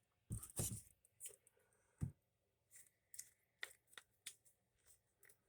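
Quiet handling of small wooden model parts and hand tools: a few soft knocks and light scrapes, the loudest knock about two seconds in.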